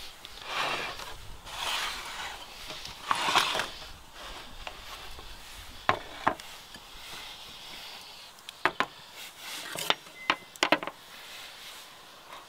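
Three rough scraping strokes in the first few seconds, then a scattering of sharp knocks and clicks, some in quick pairs.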